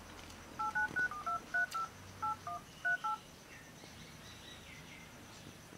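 Mobile phone keypad touch tones as a number is dialled: about ten short two-note beeps in quick succession, with a brief pause partway through.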